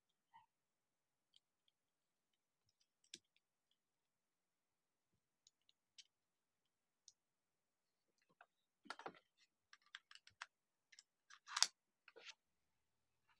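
Faint, scattered plastic clicks and taps as the parts of a toy Glock are handled and fitted together. About two-thirds of the way in they come quicker and sharper, and the loudest click falls near the end.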